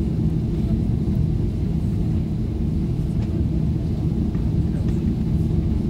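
Steady low rumble inside an airliner cabin as the plane taxis after landing, the engines running at idle.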